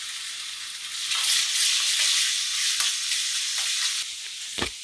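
Ginger-garlic paste and chopped vegetables sizzling in hot oil in a kadai, stirred with a steel ladle that scrapes and taps the pan. The sizzle swells about a second in, and a single sharper knock comes near the end.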